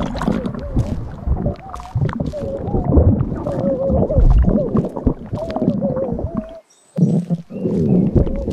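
Dubbed-in stomach sound effects on a swollen belly: deep rumbling under long, wavering whine-like gurgles and small wet clicks, cutting out briefly about two thirds of the way through before starting again.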